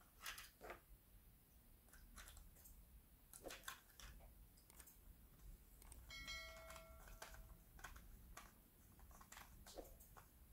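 Near silence with faint scattered clicks and taps of a small plastic pen-type voltage tester being handled. About six seconds in, a brief chime of several steady tones lasts about a second and a half.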